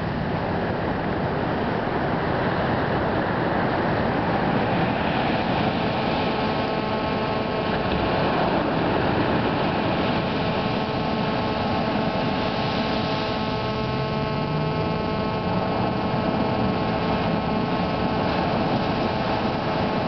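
Steady wash of surf and wind with a constant hum of several steady tones underneath; a faint low rising sound comes in briefly about two thirds of the way through.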